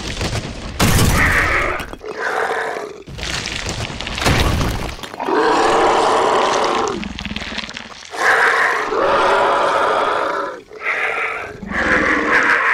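Movie-style monster sound effects: a giant worm creature roaring and shrieking in a string of long, loud calls, mixed with deep rumbling and crashing as it bursts out of the ground.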